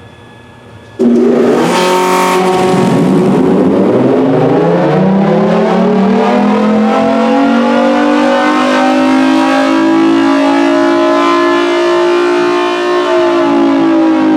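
Federal Signal Thunderbolt 1000T outdoor warning siren started with both blower and chopper running. It comes on suddenly about a second in with a rush of air, then its wail winds up slowly in pitch, levelling off and starting to dip near the end.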